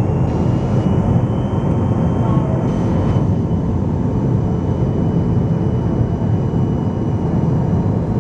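Steady cabin noise inside a McDonnell Douglas MD-83 airliner on approach: the rush of airflow and the run of its rear-mounted Pratt & Whitney JT8D turbofans, with a faint high whine that rises slightly in pitch over the first couple of seconds.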